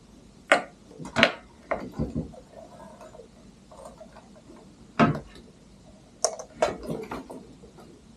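Hard objects being handled and set down on a desk: a series of sharp clicks and knocks in two short clusters, a few in the first two seconds and a few more from about five seconds in.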